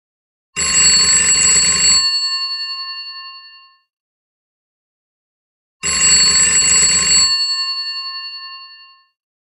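Old telephone's electromechanical bell ringing twice. Each ring is a burst of rapid hammer strikes lasting about a second and a half, after which the bells keep sounding and fade away.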